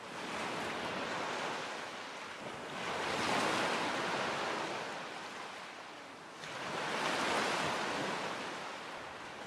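Ocean surf: waves washing in, swelling about three seconds in and again about seven seconds in.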